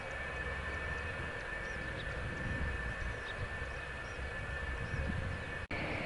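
F-4EJ Kai Phantom II jets' twin J79 turbojets running at low power as the jets taxi: a steady high whine over a low rumble. The sound cuts out for an instant near the end and comes back louder.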